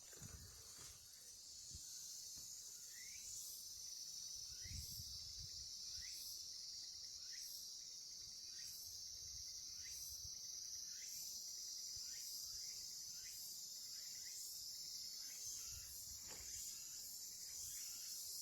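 Insects chirring in chorus: a steady high-pitched buzz, with a short chirp repeating about once a second.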